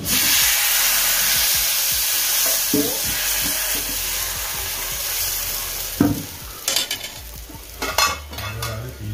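Thin batter poured from a ladle onto a hot griddle, sizzling loudly at once, the hiss dying down gradually over about six seconds as the lacy pancake sets. A few knocks and scrapes of the steel ladle on the pan come through, the sharpest about six and eight seconds in.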